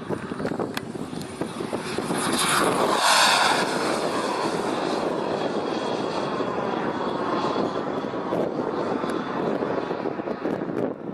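Radio-controlled model jet's K-180G2 turbine running at speed as the jet passes, loudest about three seconds in, then its whine falling in pitch as it moves away.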